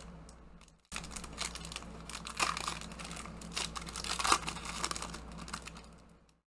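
Foil wrapper of a 2019 Panini Chronicles football trading card pack crinkling and tearing as it is ripped open by hand, with louder crackles about two and a half and four seconds in.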